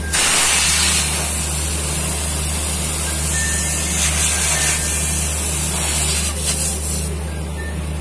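Nitrogen gas from a cylinder rushing through an air conditioner's condenser coil and hissing out of the open outlet pipe into a rag held over it: a nitrogen flush of the condenser. The hiss starts suddenly, swells a little around four and six seconds in, and eases off about seven seconds in.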